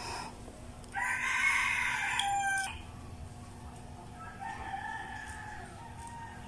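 A rooster crowing: one loud crow starting about a second in and lasting nearly two seconds, cutting off sharply, then a second, fainter crow about four and a half seconds in.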